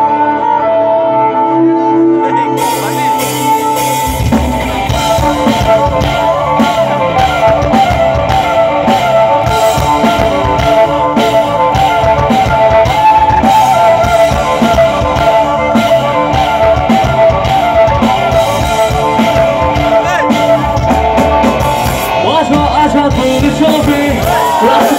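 Amplified live rock band: held notes at first, cymbals coming in after about two and a half seconds, then the full drum kit and bass kicking in about four seconds in, with a vocalist singing over it.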